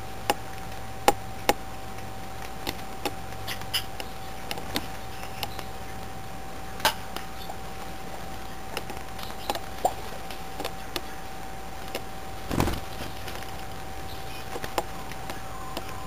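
Scattered sharp ticks and taps from dark-eyed juncos pecking and hopping on a seed-covered feeder tray, with one heavier thump about three-quarters of the way through. A steady faint tone hums underneath.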